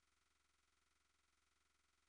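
Near silence: a blank, soundless gap in the track.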